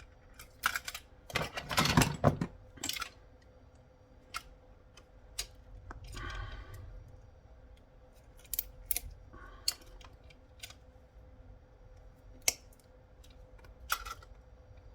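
Plastic and small metal parts of a radio-control handset being handled and pulled apart by hand: scattered clicks and knocks, densest about two seconds in, with a short scrape near the middle.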